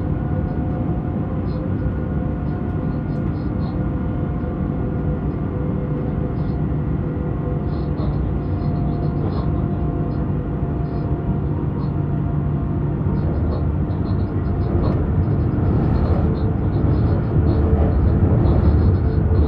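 Running noise of a BR 186 (Bombardier TRAXX) electric locomotive heard from inside its cab at speed: a steady rumble with several held humming tones, growing louder over the last few seconds.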